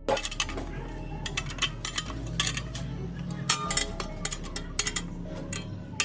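Metal tools and parts clinking and clanking together in an irregular run of a dozen or more sharp, ringing knocks, as metal stand parts are handled and fitted.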